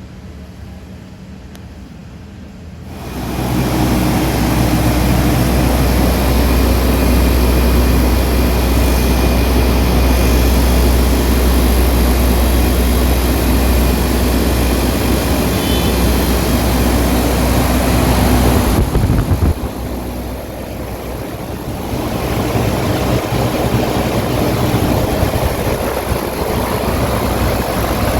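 Large fan running: a steady rush of air over a low hum. It grows much louder about three seconds in and eases off for a few seconds about two-thirds of the way through.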